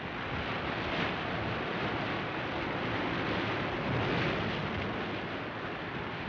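Storm sound effect of rough sea surf and wind: a steady rush of noise that swells about a second in and again around four seconds in.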